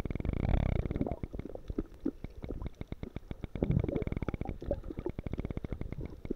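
Underwater sound on a submerged camera in the sea: a low, muffled rumble of moving water with dense crackling clicks, and bubbling gurgles about half a second and about four seconds in.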